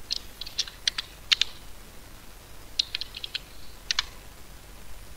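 Computer keyboard keystrokes: two short bursts of quick key clicks, the second starting about three seconds in.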